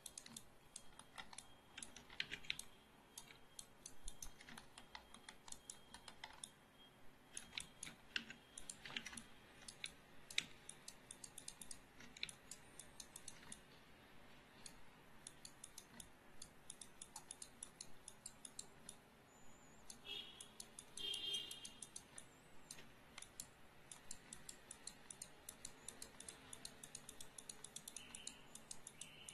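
Faint, irregular clicking of a computer keyboard and mouse.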